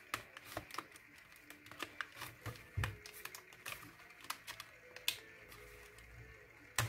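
A die-cut chipboard frame being pressed and pried out of its printed sheet: a run of small, irregular clicks and crackles of card working loose.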